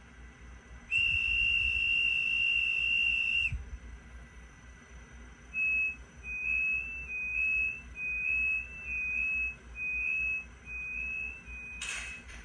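ESU sound decoder in a Kato ICE 4 model train playing a high whistle-like tone through its small speaker: one long steady tone for about two and a half seconds, then a run of about a dozen short beeps, each about half a second apart. A sharp click near the end.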